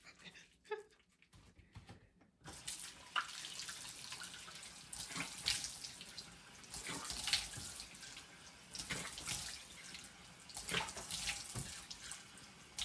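Bathroom sink faucet running, switched on about two and a half seconds in, with hands splashing and cupping water to rinse face wash off the face.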